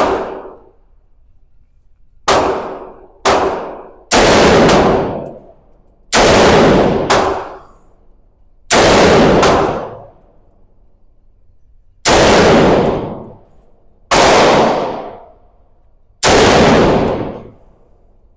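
Series of about ten single gunshots fired one to four seconds apart, each loud crack followed by a long echoing decay.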